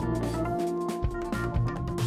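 Background instrumental music with a bass line and drum beat.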